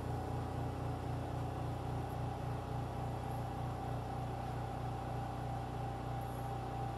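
Medical suction pump running steadily with a low hum and a fast even pulse, suctioning the sinus through the tubing after the balloon dilation.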